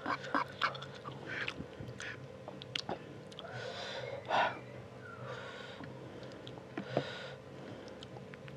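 Chewing of spicy fried instant noodles, with small wet clicks in the first second or so. Then come three sharp hissing breaths through the open mouth, the sign of a mouth burning from hot chillies.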